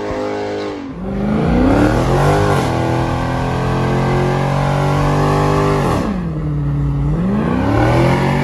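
Dodge Challenger's engine revving hard during a burnout, tyres spinning. The revs climb about a second in, hold high and steady, drop briefly around six seconds in, then climb again near the end.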